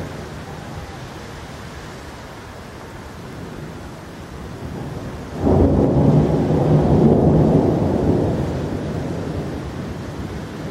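Steady rain, with a sudden loud clap of thunder about halfway through that rumbles on for a couple of seconds and slowly fades.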